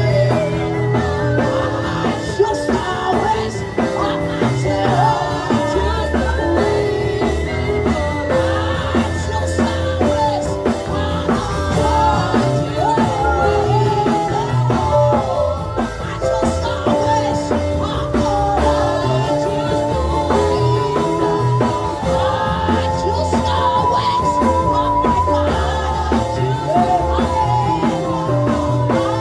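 Worship band music with a steady bass and beat, and a voice singing long, wavering held notes over it.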